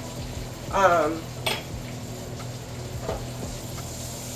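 Steak frying in bubbling butter in a pan: a steady sizzle, with a sharp utensil clink about one and a half seconds in. Just before the clink comes a short voiced 'ooh', the loudest sound.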